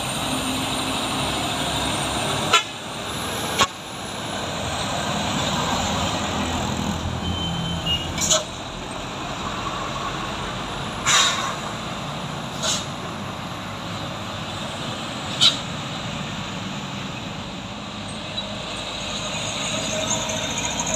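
Heavy diesel trucks running and driving past, a steady engine drone, broken by about six short sharp bursts spread through it.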